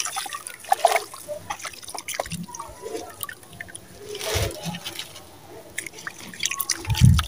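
Wet sand-cement lumps being squeezed, crumbled and dipped by hand in a plastic tub of water: irregular squelching, dripping and splashing, with a splash about four seconds in and a dull thump near the end.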